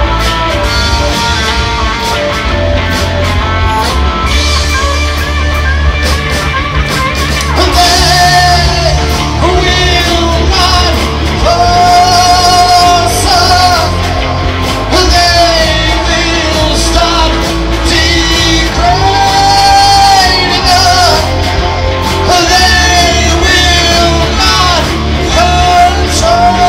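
Live rock band playing, with electric guitars, bass guitar and drums; a singer comes in about eight seconds in and sings long held lines over the band.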